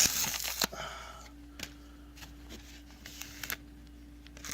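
Foil booster pack wrapper crinkling and rustling in the hands as it is worked open, loudest in the first second, then a few light handling clicks.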